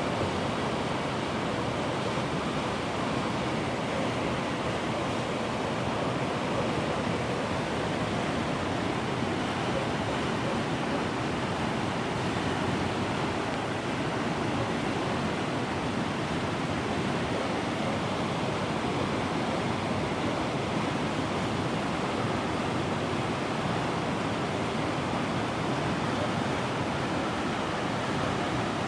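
Heavy rain from a storm pouring down as a steady, unbroken rush, with no thunder claps.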